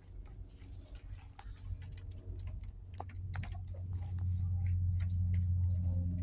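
Hens moving about in a coop: scattered light taps and scratches. A low steady hum grows louder in the second half.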